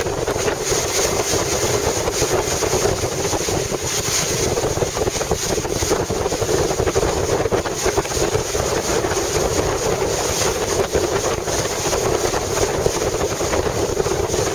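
Wind buffeting the microphone aboard a small motorboat running at speed over open water, with the rush of water along the hull beneath it. The roar is steady and unbroken.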